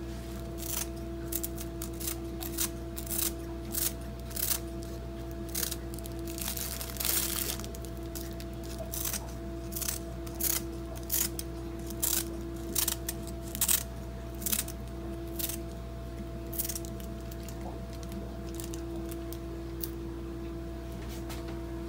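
Dried nori seaweed crackling in short, sharp snaps as it is broken into strips over a plate of pasta, over a steady hum with a constant held tone.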